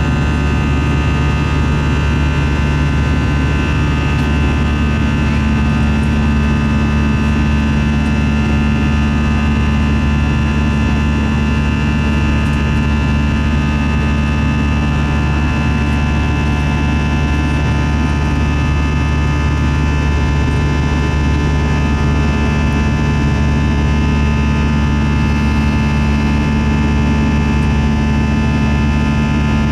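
An Airbus A321's underwing jet engine and the airflow around it, heard from inside the cabin beside the wing during the climb after takeoff. It is a loud, steady drone with a low rumble and several steady whining tones over it. A low hum grows stronger about four seconds in.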